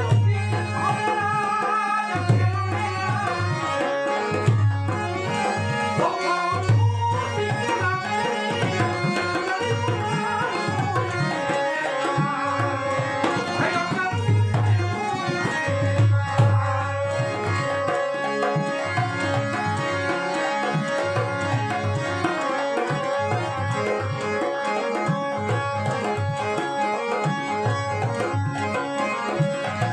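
Indian folk music passage: a hand drum plays a steady rhythm with deep bass strokes about every two seconds, under a sustained melodic accompaniment, with little or no singing.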